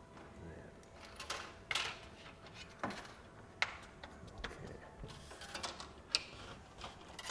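Plastic diffuser being pressed and clipped into an aluminium LED strip extrusion by hand: a run of irregular sharp clicks with short scrapes as it snaps into place along its length.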